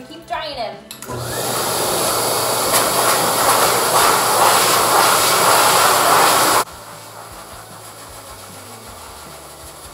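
Forced-air dog dryer blowing through its hose onto a wet St. Bernard coat: a loud, steady rush with a low hum that starts about a second in, then drops suddenly to a much quieter steady blow for the rest.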